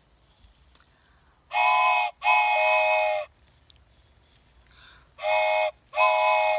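Wooden toy train whistle blown in two pairs of toots, each pair a short toot followed by a longer one, every toot a chord of several tones sounding together.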